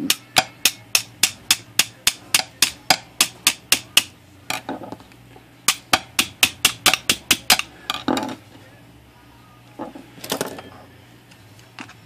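Rapid, evenly spaced metallic clicks, about four to five a second, from a typewriter's mainspring drum being worked by hand, in two runs with a short pause between. A duller knock and a brief rustle follow later.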